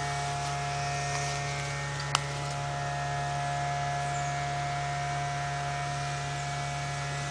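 A steady hum made of several held tones, with a single sharp click about two seconds in.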